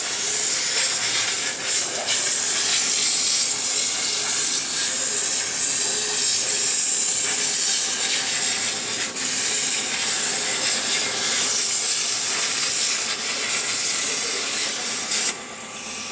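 CNC plasma cutter's torch cutting steel sheet: the arc and its gas jet make a loud, steady, high hiss. The hiss drops away about fifteen seconds in.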